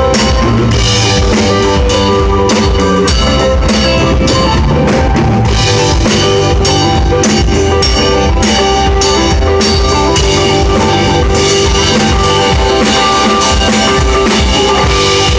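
Live rock band playing: drum kit beating a steady rhythm under electric guitar and bass.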